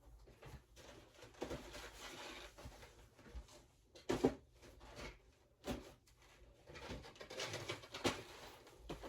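Rummaging through a storage tote of boxed diecast cars: packaging rustling and shuffling, with a few sharper knocks of items being moved.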